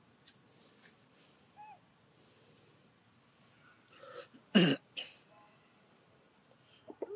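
One loud, short cough-like burst about halfway through, over a quiet background with a steady high-pitched hum.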